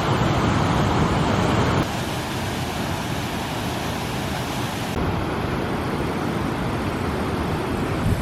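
Steady rush of the River Tees' fast water at Low Force, with sudden shifts in loudness and tone about two seconds in and again about five seconds in.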